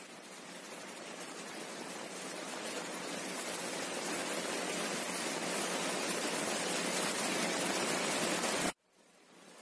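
Heavy rain pouring onto a paved road, a steady hiss that slowly swells in. It cuts off suddenly near the end, then begins to rise again.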